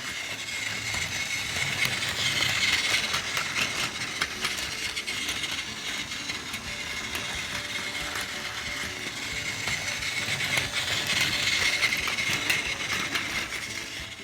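Battery-powered Plarail Doctor Yellow toy shinkansen running on plastic track: its small geared motor whirs with dense clicking and rattling. It grows louder twice as it passes close by.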